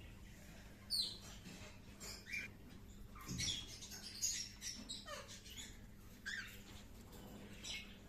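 Small pet parrots chirping: short, sharp calls, each sweeping downward in pitch, about every second or so.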